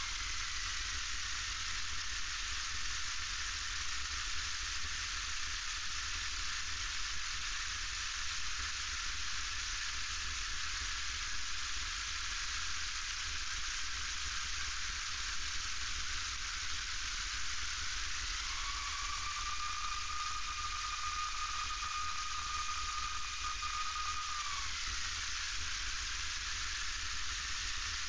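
Steady hiss of cabin noise in a single-engine piston light aircraft touching down and rolling out on a rain-wet runway. About two-thirds of the way through, a thin whine rises, holds for several seconds, then falls away.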